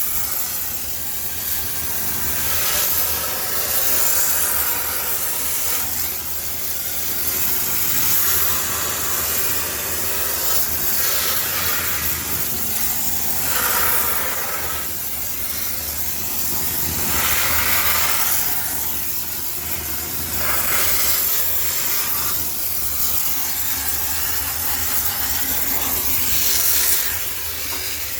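High-pressure steam cleaner jetting steam into a washing machine for sterilization: a loud hiss that swells and fades every few seconds as the nozzle is worked around, over a steady low hum.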